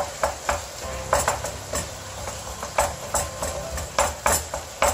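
Wooden spatula stirring and breaking up pieces of fish in a nonstick frying pan, with irregular knocks and scrapes against the pan a few times a second. The fish, tomatoes and peppers sizzle underneath.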